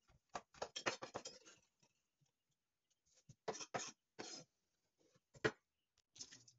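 Chef's knife chopping dried chilies on a wooden cutting board: a quick run of light taps for about a second and a half, then a few scattered knocks and scrapes as the pieces are moved into a small bowl.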